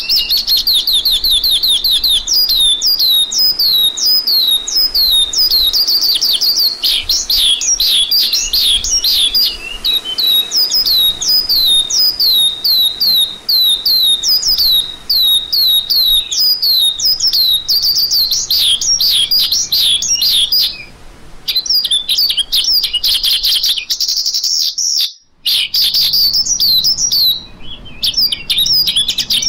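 Lark singing: a fast, continuous run of sharp, downward-slurred whistled notes, about three a second, with a couple of brief breaks near the end.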